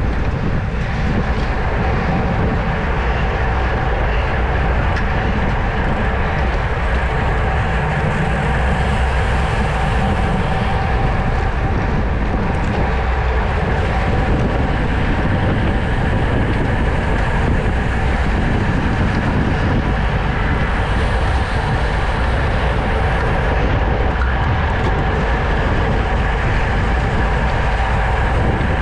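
Road bike racing at speed: a steady rush of wind and tyre noise with a steady whir running through it, heard on the rider's action camera.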